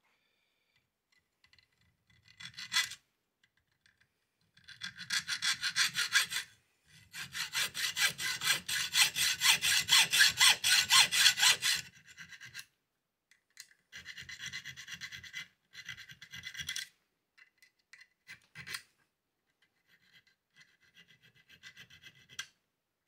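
Hacksaw cutting wire-guide slots into a metal turnbuckle held in a bench vice, in runs of quick back-and-forth strokes. The longest and loudest run comes about a third of the way in, and shorter, quieter runs of strokes follow with pauses between them.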